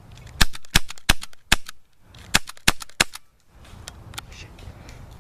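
Airsoft pistol firing a rapid string of about ten sharp single shots, with a short pause about two seconds in. The shots stop after about three seconds.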